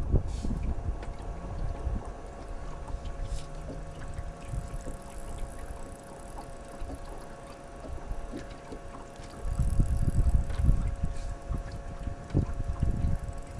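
Wind rumbling on the microphone in gusts, strongest about ten seconds in, over a faint steady hum.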